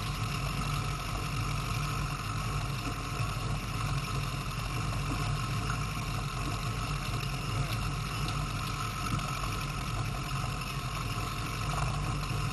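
Force 120 outboard motor running at a steady cruising speed, driving the boat along, with water and wind noise mixed in.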